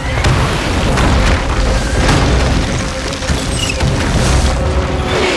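Film sound design of a volcanic eruption: a constant deep rumble with repeated booms as burning debris strikes the ground, under the orchestral score.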